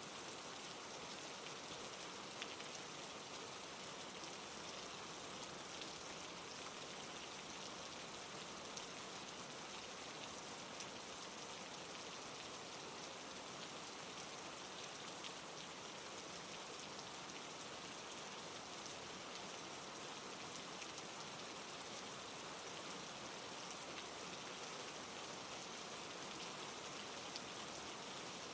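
Steady rain falling, a continuous hiss strongest in the highs, with fine pattering drops throughout.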